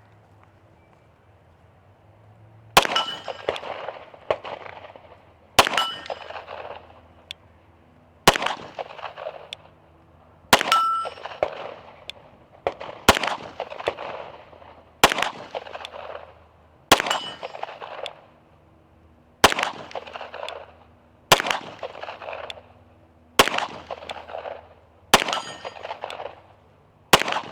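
Staccato P 9mm pistol firing slow, single aimed shots, about a dozen, roughly two seconds apart, each followed by an echo. A brief high metallic ring follows several shots: the steel target being hit.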